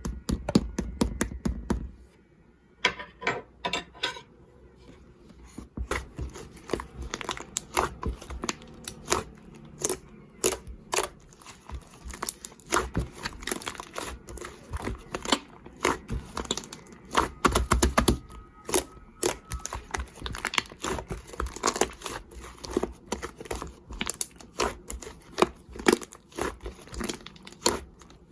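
Slime being played with by hand: a dense, irregular run of wet clicks, pops and crackles, with a brief lull about two seconds in.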